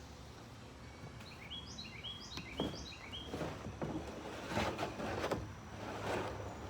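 A bird chirping a quick run of about ten short, high notes, then a few soft swells of rustling noise.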